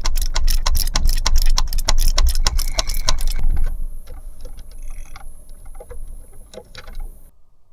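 Rapid, regular ticking like a clock over a low rumble. About three and a half seconds in it drops in level and thins to scattered clicks, then stops shortly before the end.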